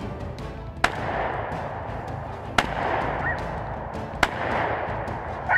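Three gunshots about a second and a half apart, each followed by a rolling echo through the woods.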